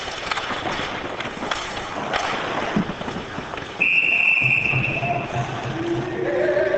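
Ice hockey play: sticks clacking and skates on the ice at a faceoff, then a referee's whistle blows one long, steady blast about four seconds in to stop play. Voices shout over it near the end.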